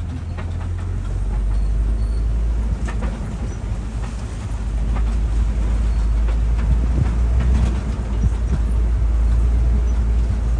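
Safari ride truck driving, its engine making a low steady rumble, with scattered knocks and rattles from the vehicle.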